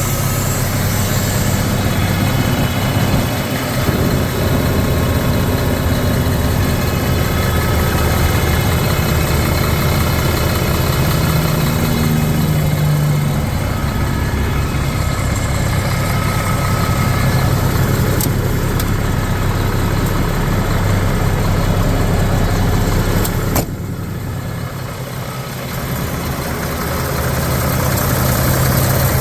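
Mack 11.9-litre six-cylinder diesel engine of a concrete truck idling steadily. A sharp click comes about three-quarters of the way through, after which the sound is quieter for a couple of seconds before returning.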